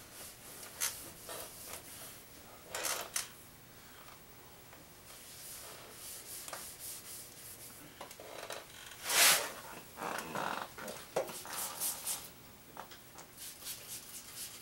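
A rag rubbing and wiping over an engine block in irregular strokes, with one louder swipe about nine seconds in.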